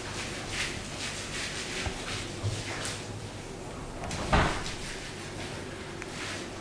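Paint roller swishing back and forth over a sheet of wallpaper laid on the floor, in repeated soft strokes, with one louder thud about four seconds in.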